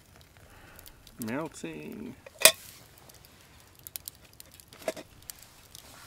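Wood fire in a Bushbox XL stove crackling with scattered sharp pops, one loud snap about two and a half seconds in.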